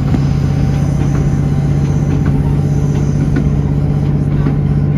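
Steady running noise heard inside a moving diesel passenger train: an even, low engine drone with faint rattles and ticks from the carriage.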